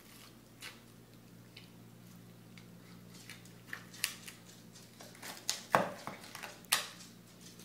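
Knife carving a roasted chicken on a wooden cutting board: scattered sharp clicks and knocks of the blade cutting through skin and joints and striking the board, coming more often in the second half, loudest about six seconds in. A faint steady low hum underneath.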